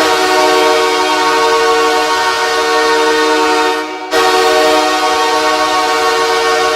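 Los Angeles Kings arena goal horn sounding two long, loud blasts, with a short break a little under four seconds in. It is the horn that signals a goal.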